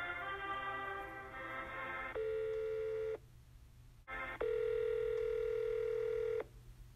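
Sped-up telephone hold music heard down the phone line, which stops about two seconds in. A steady buzzing phone tone then sounds twice, first for about a second and then for about two seconds, as the call is transferred.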